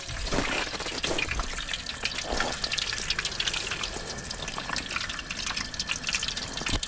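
Sliced potatoes frying in a pot of hot oil on an outdoor burner: the oil sizzles with dense, fast crackling as the steaming fry basket is lifted out.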